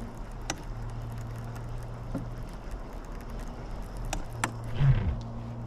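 A small motor humming steadily at a low pitch, cutting out for about a second midway, with three sharp clicks.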